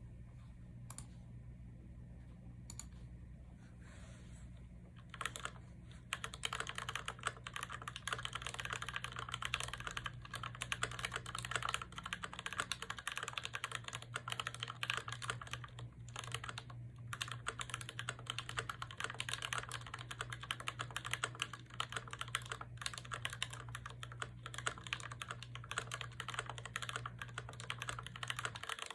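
Typing on an IDOBAO ID80 mechanical keyboard with Gateron Ink Black linear switches lubed with Krytox 205 Grade 0. A few scattered keystrokes come first, then continuous fast typing from about six seconds in. A steady low hum runs underneath.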